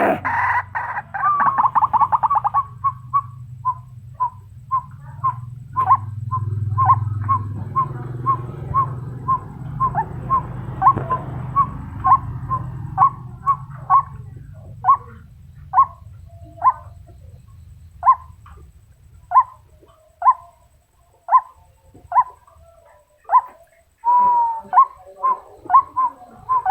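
Female white-breasted waterhen calling to a male: a long series of short, sharp notes, run together quickly at first, then spaced out and slowing to about one a second.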